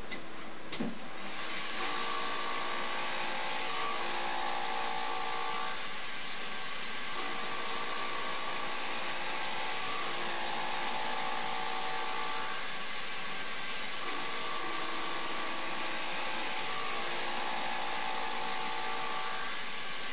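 CNC machine running: a steady hissing spindle, with a set of whining motor tones that rise and fall in three similar passes about every seven seconds as the machine repeats its toolpath.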